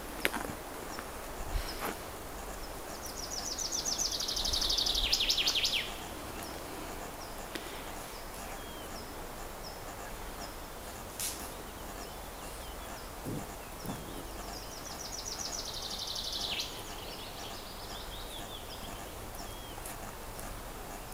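A songbird sings two phrases, about ten seconds apart. Each is a rapid trill of notes that falls in pitch and lasts two to three seconds. A few brief soft knocks are heard between them.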